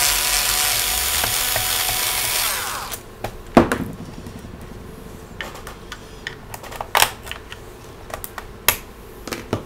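Bosch cordless electric screwdriver whirring for nearly three seconds as it backs out a laptop hard-drive screw, then winding down. After it come a few sharp clicks and knocks, the loudest a little after it stops.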